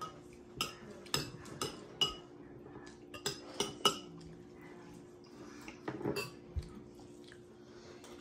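Metal spoons clinking and scraping against ceramic bowls of pasta, a series of sharp clinks in small clusters, over a faint steady hum.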